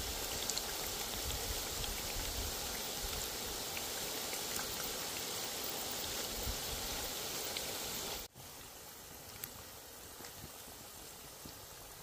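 Battered onion rings deep-frying in hot oil in a cast-iron pot: a dense, steady sizzle with small pops, turning quieter about eight seconds in.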